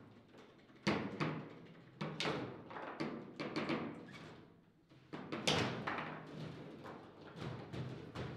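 Table football in play: a run of sharp, irregular knocks as the hard ball strikes the plastic player figures and the table walls, and the steel rods clack against their bumpers.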